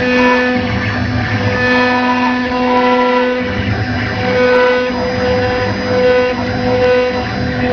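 Background instrumental music, with held notes that change every second or two.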